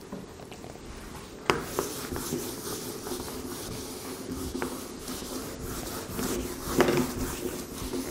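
Board duster rubbing across a whiteboard, wiping off marker writing in steady scrubbing strokes, with two sharp knocks, one about a second and a half in and one near the end.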